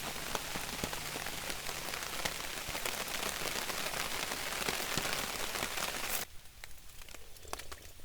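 Rain falling steadily, with many individual drops striking close by. About six seconds in it cuts off abruptly, leaving a much quieter background with a few scattered ticks.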